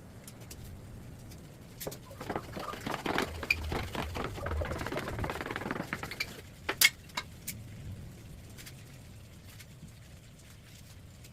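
Clattering and rattling of small hard objects for about four seconds, then a few sharp clicks.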